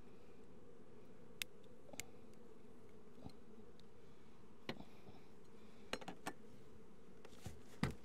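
Honeybees humming steadily around an open hive, with about six short, sharp clicks as a small queen cage is handled.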